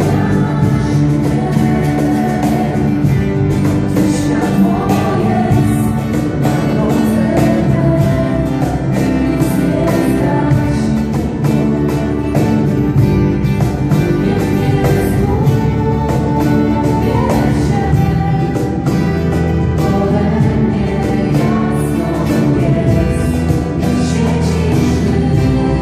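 Live worship band playing a song: several voices singing together over strummed guitars and a keyboard.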